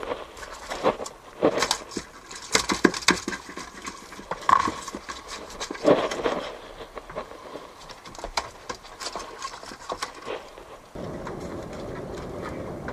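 Irregular knocks, clicks and clatter as a triggerfish is handled and dropped into a cooler of fish and tools are set on the bait board. About eleven seconds in, a steady rushing noise takes over.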